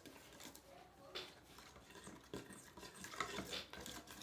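Faint stirring of glue and glitter in a container, a utensil scraping and tapping lightly against its sides with a few soft knocks.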